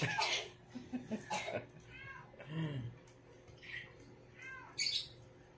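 A cat meowing a few times with short arched calls, with brief hissy noises at the start and near the end.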